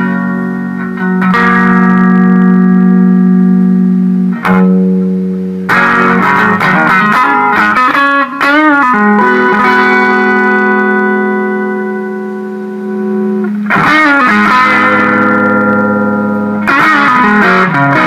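Electric guitar played through a ProCo RAT distortion pedal, testing it after a footswitch repair. Chords are struck and left to ring, with a run of bent, wavering notes about halfway through and fresh chords struck twice near the end.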